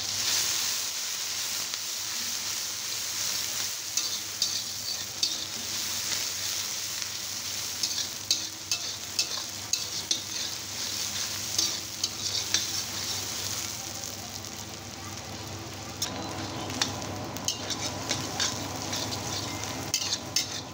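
Sliced onions sizzling as they fry in hot oil in a steel kadhai, with a spatula scraping and clicking against the pan as they are stirred.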